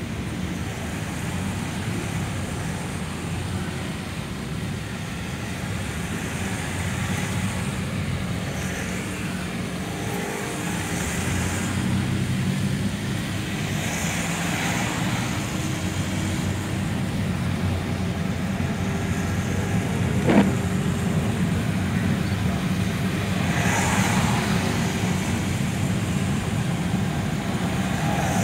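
Inside a car's cabin in slow traffic on a wet road: a steady low engine and road hum, with tyre hiss that swells a few times and one sharp click about twenty seconds in.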